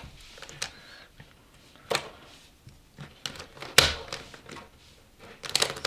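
Hard plastic clicks and knocks from the pieces of a YJ Guanlong speedcube being handled, a few separate sharp taps and then a quick cluster near the end.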